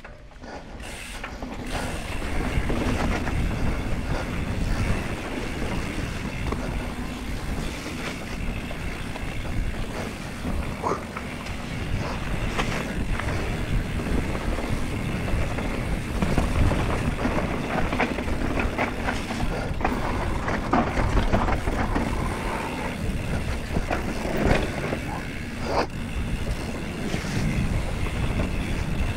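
Mountain bike ridden fast down a dirt forest trail: the tyres rumbling over dirt and roots, with the bike rattling and clicking over the bumps. The noise builds up over the first two seconds as the bike gains speed.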